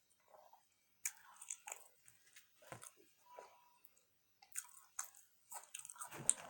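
A person biting and chewing fast food (burgers and fries) close to the microphone, with small crunches and wet mouth clicks coming irregularly from about a second in.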